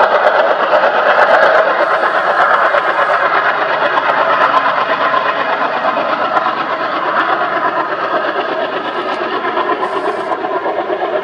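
Two ALCo WDM-3A diesel-electric locomotives working together, their 16-cylinder ALCo 251 engines chugging with a fast, steady pulsing beat as they haul a passenger train. The sound eases a little in the second half as the locomotives pull away out of sight.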